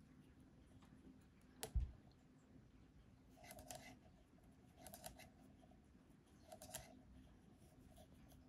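Faint handling noises of wooden knitting needles as stitches are purled in mohair yarn: one sharp click about two seconds in, then three short scraping rustles a second or so apart.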